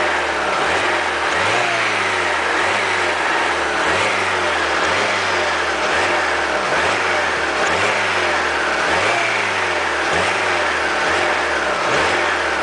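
Alfa Romeo 156 2.0 Twin Spark four-cylinder engine running, its revs rising and falling in a repeating cycle about once a second. It carries the strange pinging noise, likened to a gear grinding when shifted without the clutch, which the owner links to pinging or pre-ignition.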